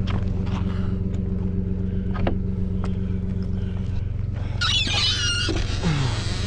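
Nissan Frontier pickup's engine idling with a steady hum. Footsteps crunch on rocky ground, and a brief harsh scraping rustle comes about two-thirds of the way in.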